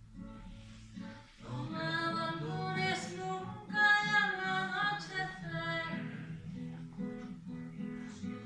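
Song with acoustic guitar accompaniment: a singing voice comes in about a second and a half in and holds long notes over steady guitar strumming.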